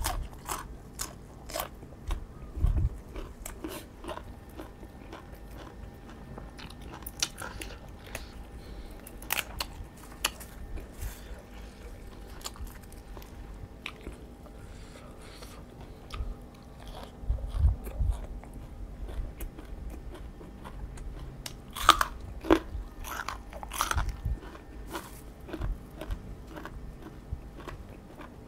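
Close-miked eating of raw shrimp salad and fresh vegetables by hand: irregular crisp bites and crunching between spells of chewing. The loudest bites come about 3, 18 and 22 seconds in.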